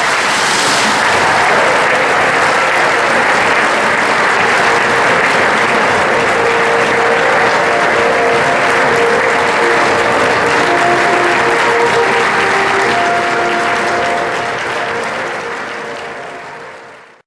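Audience applauding, with music playing underneath; the sound fades out near the end.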